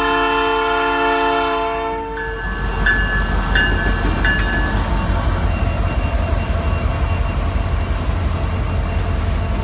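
Norfolk Southern diesel locomotive's multi-tone air horn sounding a held chord that cuts off a little over two seconds in, followed by the steady rumble of the locomotive and train rolling past.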